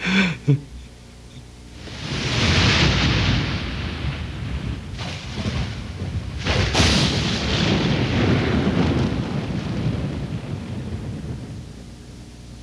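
Thunder rumbling: a long roll that swells about two seconds in, with a sharp crack near the middle, and dies away near the end.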